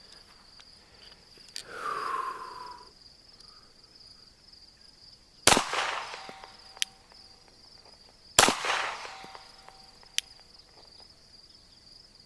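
Two 9mm shots from a Glock 34 pistol about three seconds apart, each with a ringing tail. Insects buzz steadily throughout, and a brief falling tone sounds about two seconds in.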